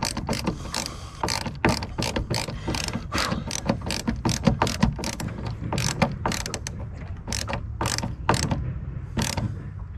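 A small screw being driven by hand into wood with a screwdriver, fixing a bracket: a run of quick, irregular clicks, several a second, that thin out over the last few seconds and stop as the screw seats.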